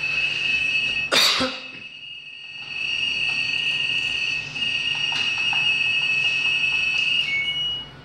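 The electronic beeper of an LG Direct Drive 6 kg front-loading washing machine sounding a steady high tone, with a short break about two seconds in, a brief change of pitch near the end, then cutting off. A loud sharp knock about a second in, and a few faint clicks as the programme dial is turned.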